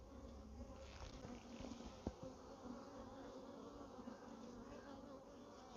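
Honeybees buzzing over a comb frame lifted from an open mating nuc: a faint, steady hum. A single light click sounds about two seconds in.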